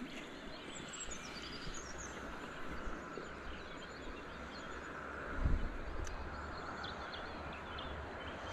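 Steady outdoor rush of the river and breeze, with small birds chirping faintly around a second or two in and a brief low bump about five and a half seconds in.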